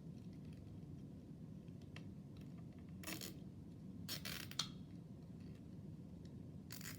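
Plastic zip ties being pulled tight, giving a few short ratcheting rasps as the tails are drawn through the locking heads, with a small click about four and a half seconds in.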